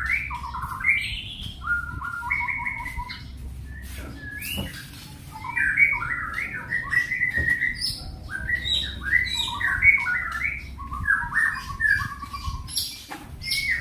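Young songbird singing its learned repertoire: a rapid, varied string of chirps and short whistled phrases, with a brief pause about four seconds in.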